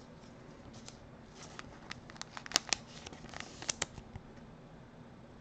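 Trading cards handled in the hands: light clicks and rustles of card stock sliding over one another, bunched in the middle, with one sharper click standing out.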